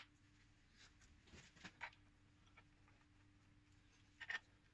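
Near silence with a few faint clicks and taps of small parts being handled: several around a second and a half in and a short cluster near the end, over a faint steady hum.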